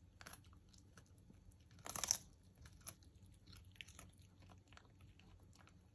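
Miniature schnauzer chewing raw broccoli: faint, scattered crunches and clicks, with one louder crunch about two seconds in.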